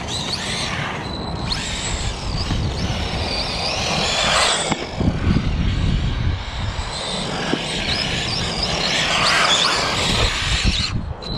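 Electric RC rally car's 4500 kV brushless motor and drivetrain whining in rising and falling glides as it speeds over asphalt on a top-speed pass, loudest twice as it comes near.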